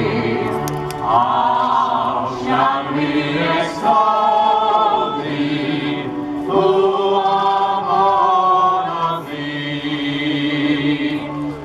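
Many voices singing a wartime song together, with long held notes.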